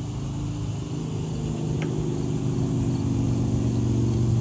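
A motor engine running steadily with a low hum, slowly growing louder.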